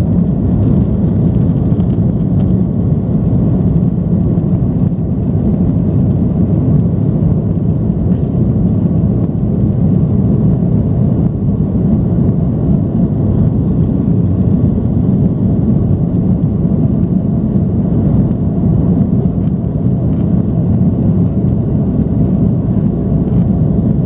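Steady low rumble inside the cabin of an Airbus A330-300, its General Electric CF6 engines running at low power while the aircraft is on the ground.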